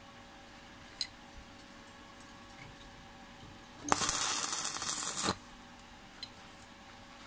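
Electric arc welding on thin steel square tube: a single short tack weld, with the arc crackling for about a second and a half starting near the middle. A faint steady hum runs underneath.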